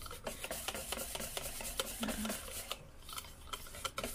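Wire whisk beating thin batter in a stainless steel bowl, its wires ticking and scraping against the metal in quick, uneven clicks. The batter is being whisked until small bubbles form.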